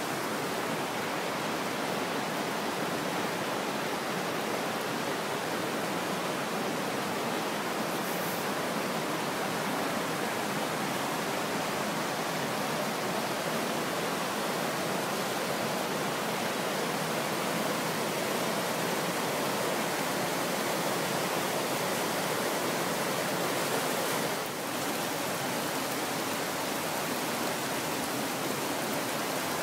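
Steady rush of flowing water, an even hiss and roar with no breaks, dipping briefly near the end.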